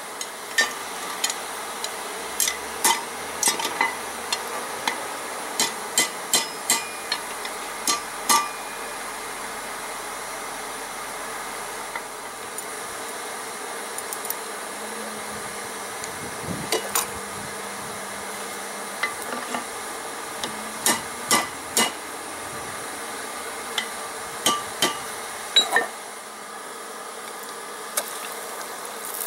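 Light hammer strikes and clinks of steel against the anvil while shaping a forged hook, coming in irregular runs: a quick series in the first several seconds, a pause, then more strikes in the second half, over a steady low hiss.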